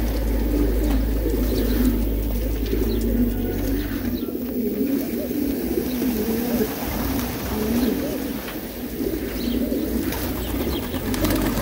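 A flock of racing pigeons cooing together: a steady chorus of many overlapping low coos. A low rumble underneath stops about four seconds in.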